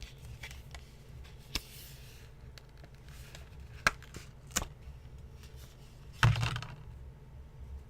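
Hands handling a Blu-ray steelbook and its packaging: a few scattered light clicks and taps, then a louder knock with a brief rustle about six seconds in.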